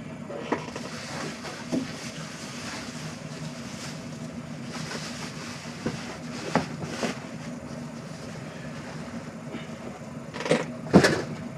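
Packing paper rustling and a cardboard shipping box being handled, with scattered knocks and a few louder thumps about ten seconds in as the box is shifted. A steady low hum runs underneath.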